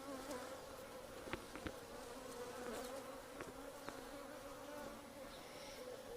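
Honeybees buzzing around an open top bar hive: a steady, faint hum from many bees, with a few light clicks.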